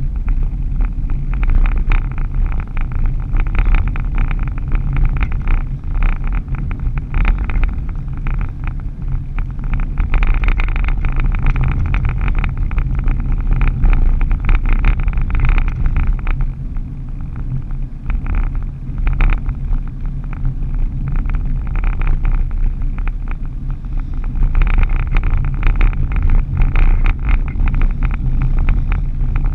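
Steady low rumble of a vehicle's engine and tyres cruising along a highway, heard from the dashboard inside the cab, with a hiss that swells and fades every few seconds.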